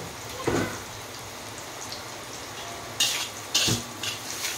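Sliced jengkol, chillies and tomato sizzling steadily in oil in a metal wok, with a short thump about half a second in. From about three seconds in, a metal spatula stirs and scrapes across the wok in quick strokes.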